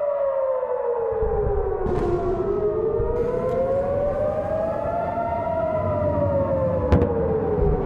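Wailing warning siren, its pitch sweeping slowly down, up and down again over a few seconds each way. A low rumbling noise sits under it from about a second in, and a sharp click comes near the end.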